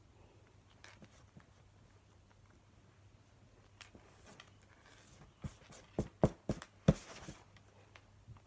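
Hands working sticky Blu Tack slime mixed with lotion on a board: faint rubbing and handling, then about five seconds in a quick run of sharp thumps and clicks as the putty is pressed and slapped.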